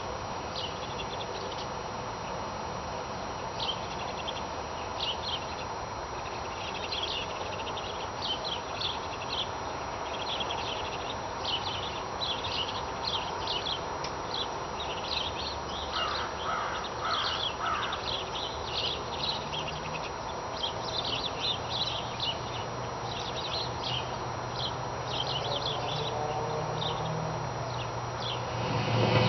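Birds chirping over and over in short high notes, with a lower call repeated four times about halfway through, over a steady low hum and outdoor background noise.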